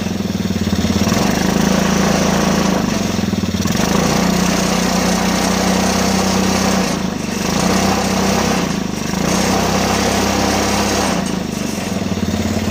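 A 107cc Honda ATV single-cylinder four-stroke petrol engine running on diesel fuel once fully warmed up, exhausting through a short open pipe. It runs on steadily, and its note dips briefly a few times.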